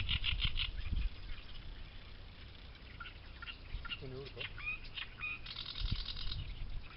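Reed warbler singing: a rapid, harsh chattering phrase in the first second, then scattered notes and a dense buzzy stretch near the end. Low thumps of wind or handling on the microphone.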